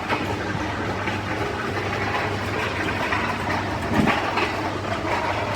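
Welding arc crackling and sizzling steadily, with a low hum underneath and a few louder pops.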